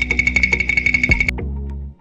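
Background music with a fast, even beat. The beat stops abruptly about two-thirds of the way through, leaving a held low chord that cuts off just before the end.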